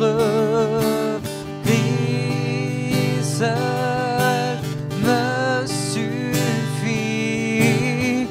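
A man sings a slow French worship song, wavering on long held notes, while strumming an acoustic guitar.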